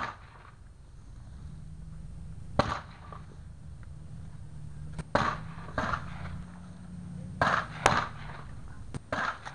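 Rifle shots cracking along a highpower rifle firing line: about eight sharp reports at irregular intervals, some in pairs under a second apart, each with a short echo. A steady low hum sits beneath them.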